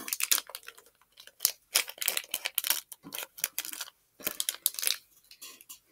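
Thin plastic Lego parts bag crinkling and rustling in the hands, in quick irregular crackles.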